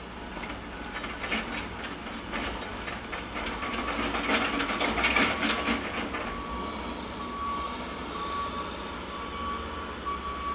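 Heavy machinery at a mulching operation: a rapid, loud clattering and knocking builds and peaks over the first six seconds, then gives way to a high tone in short repeated beeps over a steady low machine hum.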